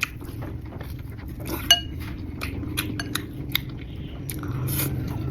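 Eating utensils clicking and clinking against bowls and dishes during a meal, with one sharper ringing clink about two seconds in.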